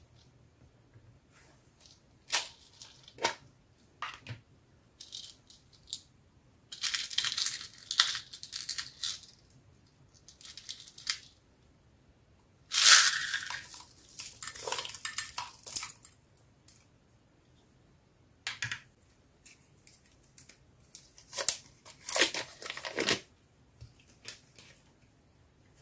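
Small plastic beads rattling in a clear plastic case and being tipped out and dropped onto slime in a glass dish, with scattered clicks of the plastic. It comes in bursts, the loudest rattling pour about a third of the way in.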